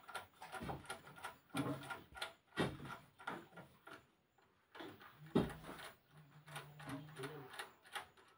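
Scattered clicks and knocks as hands work wires into a plastic wall-mounted electrical box, about one a second, with a brief low hum about six seconds in.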